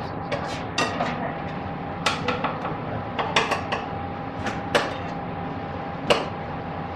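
Kitchen clatter: irregular clinks and knocks of utensils, boards and dishes being handled at a kitchen counter, over a thin steady hum.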